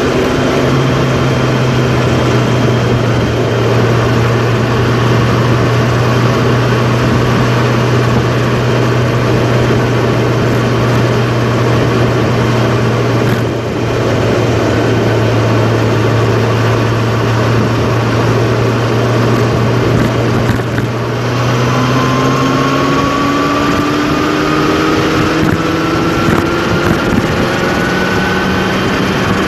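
Vehicle engine and road noise heard from inside the cab while cruising on a highway, a steady drone. About twenty-two seconds in, the engine note rises steadily as the vehicle speeds up.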